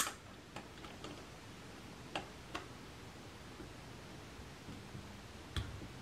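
Light metal clicks of side cutters gripping and working a steel roll pin out of a Honda ignition lock cylinder's sleeve: one sharp click at the start, then a few faint scattered ticks, one more near the end.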